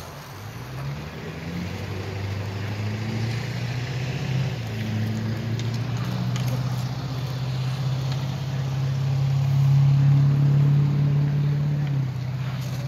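A motor vehicle engine running, rising in pitch about a second in and growing steadily louder until it peaks around ten seconds, then falling back near the end.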